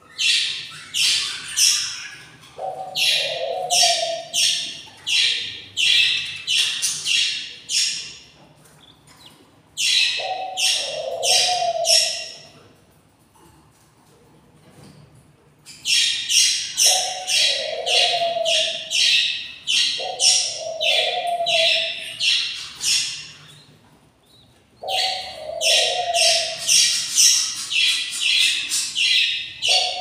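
Nestling budgerigars, about 19 days old, chirping in rapid runs of high notes, about three or four a second. The runs last several seconds and break off in short pauses. A lower, shorter call comes every few seconds.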